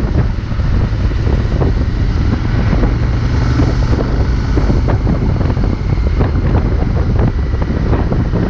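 Wind buffeting the microphone: a loud, steady low rumble with ragged gusting throughout.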